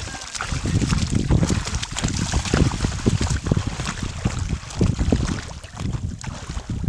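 Wind buffeting the microphone in uneven low rumbling gusts, with faint splashing of shallow lake water.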